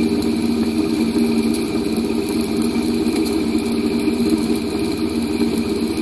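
Homemade Bedini motor-generator built from a brushed fan motor, running steadily with an even hum and fainter high whining tones above it.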